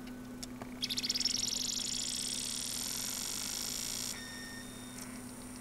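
Slot-loading DVD drive mechanism whirring with a fast, even chatter, starting about a second in and stopping about four seconds in. The drive's loading mechanism is suspected to be faulty. A faint steady electrical hum runs underneath.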